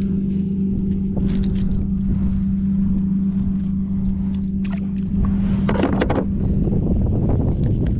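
A small motor humming steadily at one constant pitch over a low rumble, with a few sharp clicks near the middle and a brief louder rustle about six seconds in.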